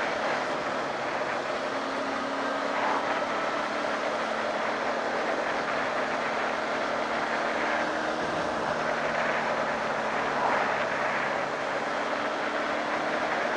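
Motorcycle riding at a steady speed: wind rushing over the microphone, with the Honda CB600F Hornet's inline-four engine running steadily underneath.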